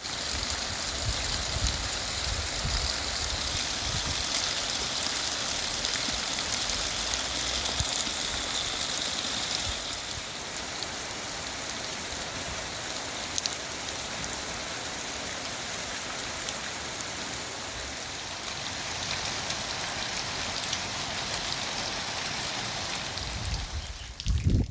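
Heavy rain falling steadily, a dense hiss of many drops. It cuts off abruptly near the end.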